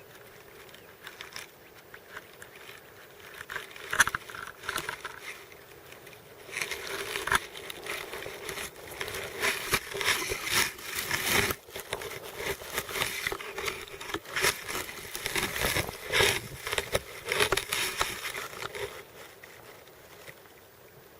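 Dry grass and brush rustling and crackling, thick with small snaps, from about six seconds in until shortly before the end, with a single sharp knock about four seconds in.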